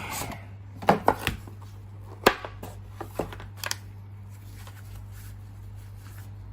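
A cardboard product box being opened and handled: a few sharp taps and knocks of the lid and its contents, the loudest about one and two seconds in, then quieter handling, over a steady low hum.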